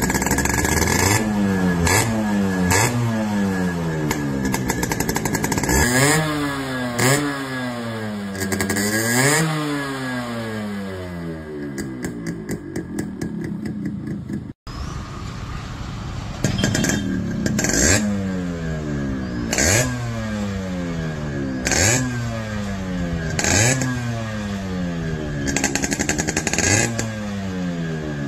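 Yamaha RX100 two-stroke single-cylinder engines revved over and over at a standstill, the pitch shooting up and dropping back with each throttle blip. It cuts off suddenly about halfway and goes on with a second bike revving the same way.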